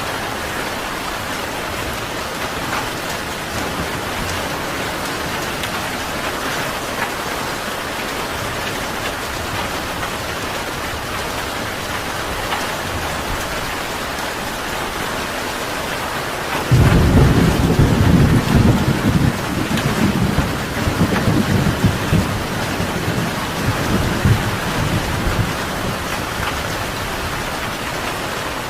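Steady rain hiss, then a loud rumble of thunder breaks in suddenly partway through and rolls on, fading over about ten seconds.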